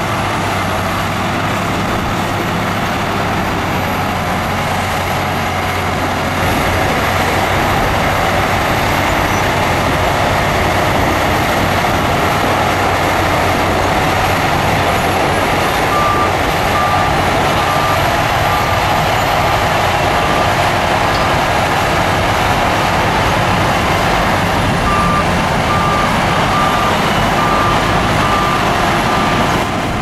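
Diesel engine of a crawler bulldozer running steadily under load, a little louder about six seconds in. A reversing alarm beeps about one and a half times a second in two spells, one around the middle and one near the end.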